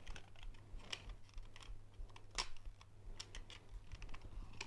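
Plastic toy parts being handled and pressed together: small irregular clicks and taps, the sharpest about two and a half seconds in.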